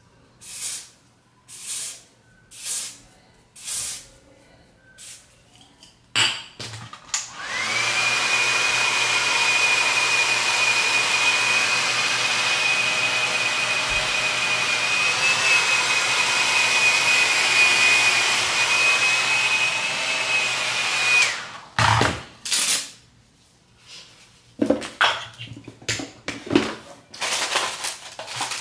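Several short hisses from an aerosol spray can, then a handheld hair dryer switched on and blowing steadily for about fourteen seconds with a high whine, drying the freshly sprayed coat on the wig's lace. It cuts off, and a few more short bursts follow near the end.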